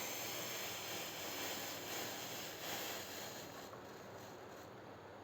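Hot giloy decoction poured through a strainer: a soft, even hiss of running liquid that dies down about three and a half seconds in.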